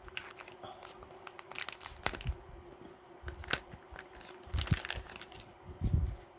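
Toy packaging crinkling and rustling as it is handled and pulled apart. Scattered clicks and a few heavier knocks come through, about two seconds in, near the middle and near the end.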